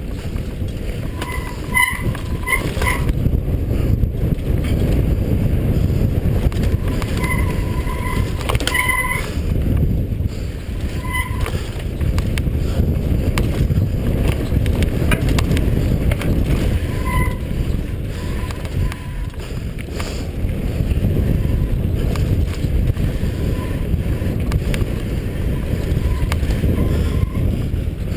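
Mountain bike descending a rocky singletrack: wind rumbling on the camera microphone, with the bike rattling and knocking over rocks and roots. Short squeaks come a few times, in small clusters.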